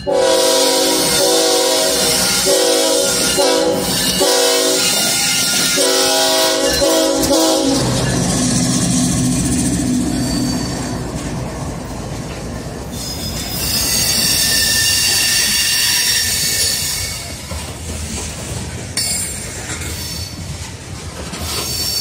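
BNSF freight train led by GE diesel locomotives blowing a multi-tone air horn in several blasts for about the first eight seconds, then the locomotives pass close with a loud engine drone and the covered hopper cars roll by, their wheels squealing on the rails for a few seconds past the middle.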